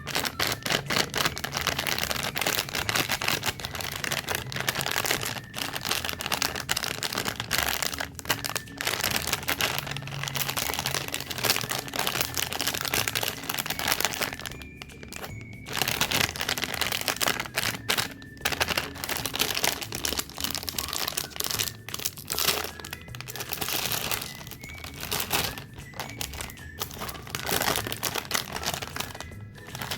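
Plastic snack wrappers crinkling and tearing as packaged cakes and cookies are unwrapped, almost without pause, with a few short breaks.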